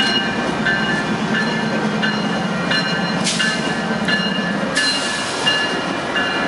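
Union Pacific double-stack container train rolling past with a steady rumble and clatter of wheels on rail. A bell rings about once every 0.7 seconds, typical of a grade-crossing bell, and a low hum drops away about three-quarters of the way through.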